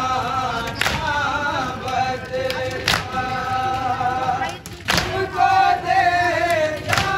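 Several men's voices chanting a nauha, an unaccompanied Urdu lament, in unison with long held notes. A sharp slap or thump sounds about every two seconds, four times.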